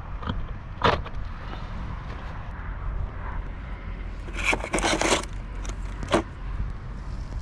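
Impact sockets being handled in a plastic case, with a short scraping rattle midway and clicks as a socket is pulled from its holder. Wind rumbles on the microphone throughout.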